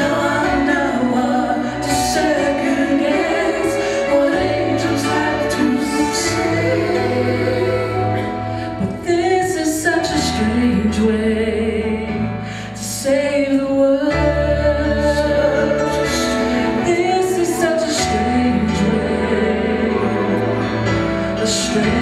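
A man singing a Christian Christmas song into a microphone over a full instrumental backing with steady bass notes, amplified through a sound system.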